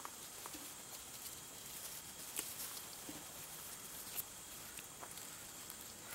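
Faint rustling of tomato plant leaves as a hand pushes them aside, with a couple of soft clicks, over a steady hiss.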